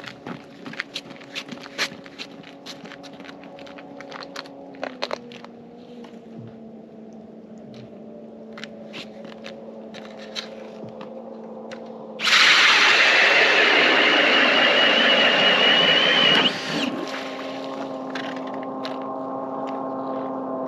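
Footsteps crunching and clicking on bare lake ice, then an ION Alpha battery-powered ice auger drilling a hole through the ice for about four seconds, a loud grinding run with a high motor whine that stops abruptly. A steady low hum runs underneath.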